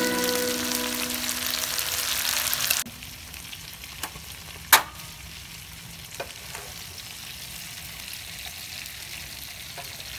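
Shrimp stir-frying in a pan with a wooden spatula: a loud, even sizzle that cuts off abruptly about three seconds in. It is followed by quiet with a few light clicks and one sharp knock of the spatula against the pan as the shrimp are scooped out.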